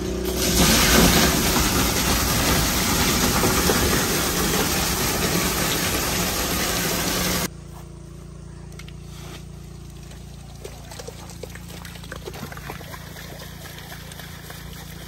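An engine running with loud rushing water over it; about seven and a half seconds in the rushing stops abruptly, leaving a quieter steady engine hum with scattered small clicks.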